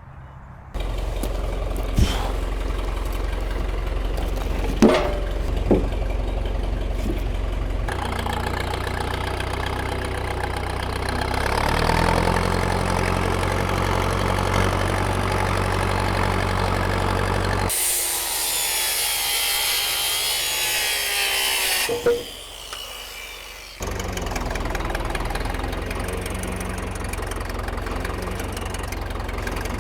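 Farm tractor engine running steadily, its note changing abruptly several times, with a few sharp knocks in the first several seconds. Midway through the hum drops out for a few seconds, replaced by a hissy, higher-pitched noise, before the engine comes back.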